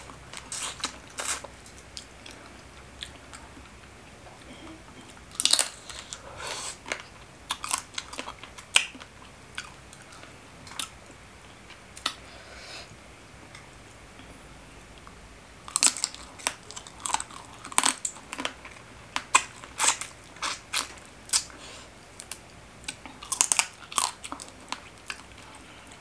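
A person biting and chewing spicy seafood papaya salad with shrimp, squid and crab: wet, crunchy clicks and smacks in bursts, quieter for a few seconds around the middle.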